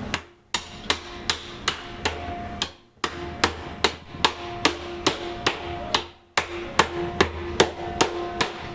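Hammer striking the steel head hoop of a wine barrel, driving it back down onto the barrel: quick, even blows about two or three a second in three runs with short pauses between, each blow leaving a metallic ring.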